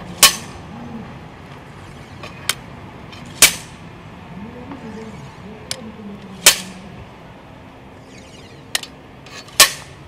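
Dynamic cone penetrometer's 8 kg steel hammer dropped onto the anvil, four sharp metallic blows about three seconds apart, each blow driving the cone rod further into the road soil. A lighter click comes shortly before each of the last three blows.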